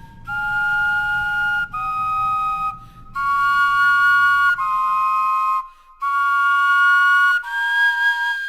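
Wind instruments carved from vegetables playing a slow tune of about six held, whistle-like flute notes, some with two pitches sounding together. The vegetables have been stored for a week in a refrigerator and still sound almost exactly the same as fresh ones.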